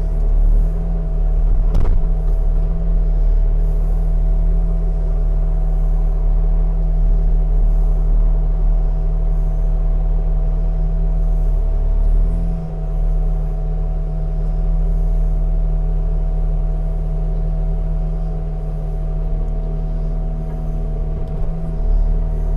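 Stihl 500i two-stroke chainsaw running under load, bucking oak logs into firewood; the engine note holds steady, with a brief dip about halfway through. A single sharp knock about two seconds in.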